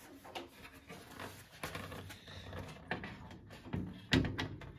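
A steel drawer being handled against its telescopic metal drawer slides: scattered light knocks and scrapes, with a louder metal clunk about four seconds in.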